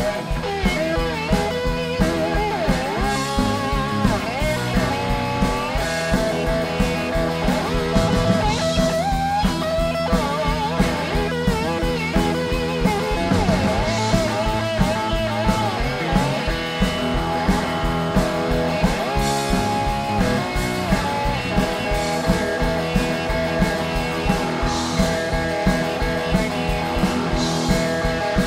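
Live blues band playing an instrumental passage: lead electric guitar with bending notes over a steady drum beat and rhythm guitar.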